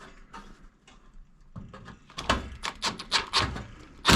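Irregular clicks and knocks of metal parts and a screw being handled in the casing of a fan coil unit, growing busier and louder over the last two and a half seconds.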